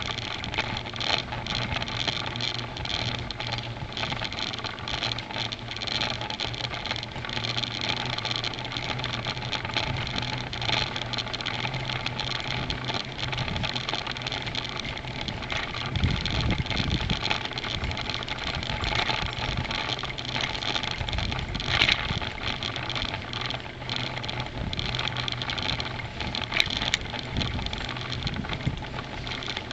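Bicycle riding along a tarmac path, heard from a camera carried on the bike: steady wind and tyre noise with frequent small rattles and knocks. A low steady hum breaks up about halfway through.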